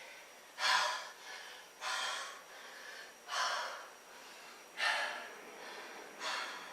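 A man breathing hard from the exertion of push-ups: five loud, airy exhalations, about one every second and a half, with softer breaths between.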